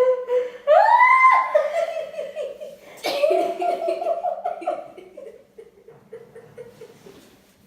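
Hearty laughter: a high rising squeal about a second in, then rapid choppy laughing that starts up again about three seconds in and dies away over the last few seconds.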